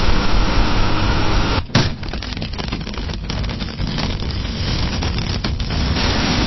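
Fireplace fire burning with a steady rushing roar, then from about two seconds in, a slightly quieter fire with dense crackling and popping.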